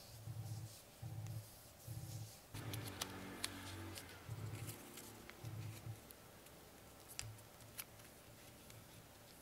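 Sheet of origami paper being folded and creased by hand on a tabletop: faint paper rustling and crinkling with light clicks, and soft low bumps about once a second as the fingers press the folds flat. A longer rustle comes about a third of the way in.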